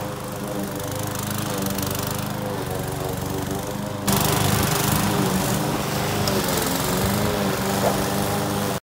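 Victa rotary lawn mower's engine running steadily while it is pushed through long, overgrown grass. It becomes suddenly louder about four seconds in.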